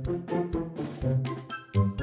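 Background music with a steady beat: pitched instrumental notes over a bass line.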